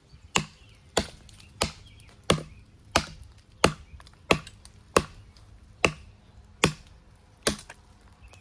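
Cold Steel Frontier Hawk tomahawk chopping into a small standing tree trunk: about eleven sharp strikes of steel into wood, one every three quarters of a second or so.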